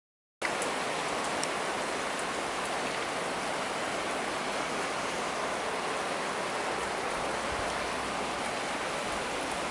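Heavy summer rain falling steadily on a tiled terrace and street, an even hiss that cuts in about half a second in, with a few faint ticks near the start.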